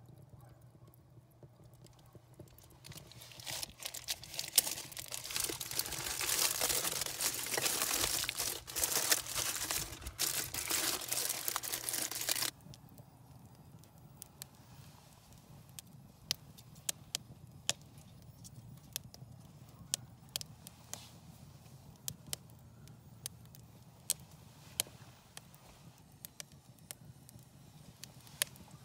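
Campfire of split kindling burning and crackling: a loud, dense crackle and hiss as the kindling catches, which cuts off suddenly about twelve seconds in, then a quieter fire with scattered sharp pops.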